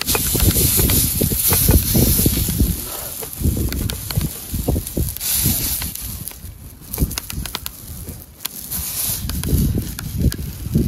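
Burger patties sizzling in frying pans over a wood fire, with scattered sharp crackles and clicks. Low rumbling thumps run through it and are the loudest part.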